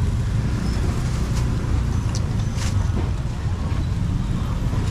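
Steady low rumble of street traffic, with a few faint clicks about two to three seconds in.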